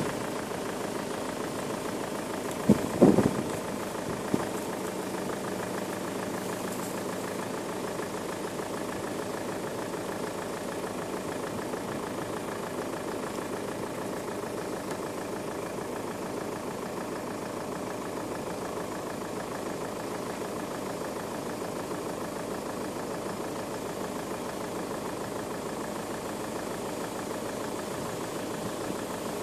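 A steady engine running at idle, even throughout, with a few sharp knocks about three seconds in and one more a second later.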